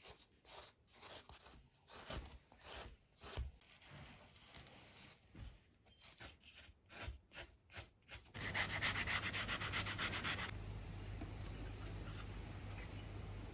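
Small knife shaving a balsa wood block in short, irregular strokes, one or two a second, carving it to shape. Then, about eight seconds in, a couple of seconds of fast back-and-forth sanding on the balsa, louder, giving way to a steady low hum.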